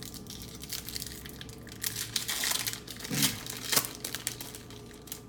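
Wrappers being torn open and peeled off trading-card packs, crinkling and crackling, busiest and loudest in the middle.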